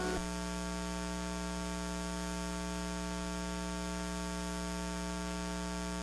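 Steady electrical mains hum, a buzz of several steady tones. Just after the start, a few held guitar notes cut off.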